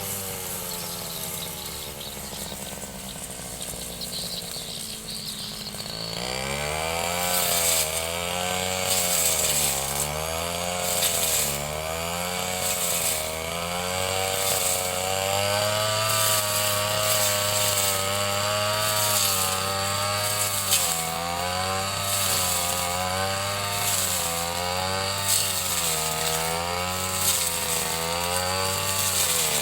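Ryu 30.5 cc two-stroke brush cutter engine running at low revs for about six seconds, then revved up and held high while cutting grass, its pitch swinging up and down every second or two.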